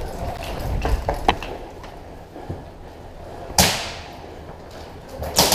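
Footsteps and gear rustling from a player on the move, with a few light clicks. A single sharp crack with a short ringing tail comes about three and a half seconds in, and another comes near the end.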